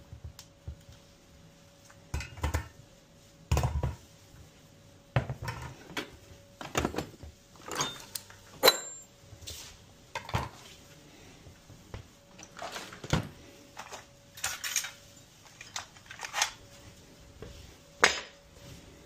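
Metal plumbing tools and copper pipe fittings being handled and set down on a wooden board: a dozen or so separate knocks and clinks, the sharpest about nine seconds in, over a faint steady hum.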